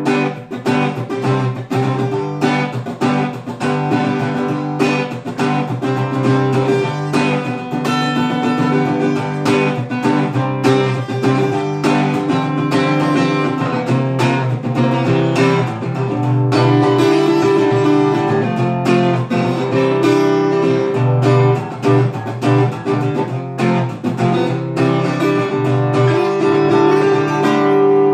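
Acoustic guitar played solo: a continuous run of plucked and strummed chords.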